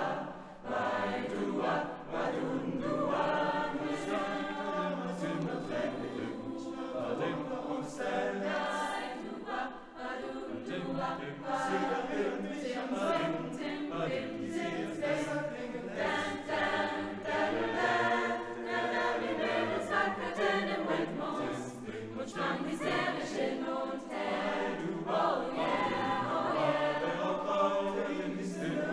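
Mixed choir of teenage voices singing a swing arrangement in harmony, the phrases moving on without a break.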